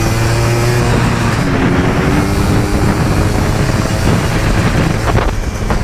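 ATV engine running while riding, its pitch shifting a little as the throttle changes, over a steady rush of wind noise. The engine note eases briefly about five seconds in.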